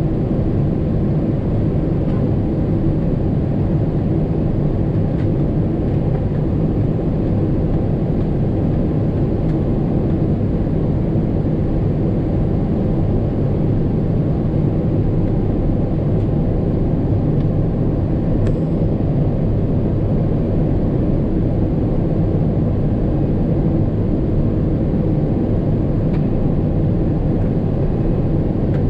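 Airliner cabin noise heard at a window seat during descent: the engines and rushing air make a steady, low-pitched roar that does not change.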